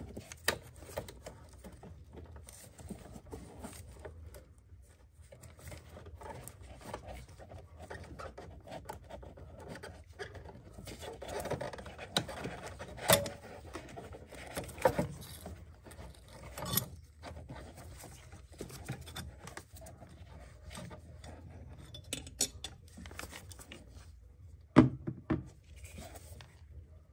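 Hands working in a car's engine bay: scattered clicks, scrapes and light knocks as hoses, plastic fittings and parts are handled, with a sharper knock about halfway and the loudest one near the end.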